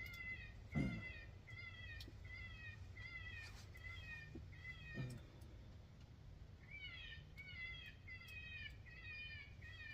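Electronic predator caller playing a distress call: a steady run of short, high, cat-like cries, about two a second, each dipping slightly in pitch, with a short pause partway through. Two soft low knocks, one about a second in and one about five seconds in.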